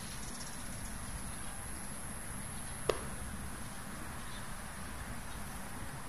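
Steady outdoor background noise with a faint constant high whine, and one sharp click about three seconds in.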